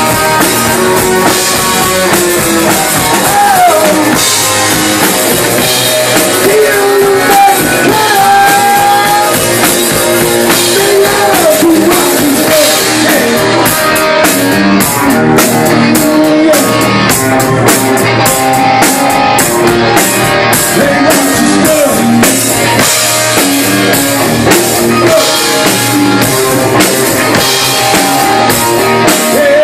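Live rock band playing loud: electric guitar over a full drum kit, the lead line full of bent, sliding notes, with a steady cymbal beat coming through from about halfway on.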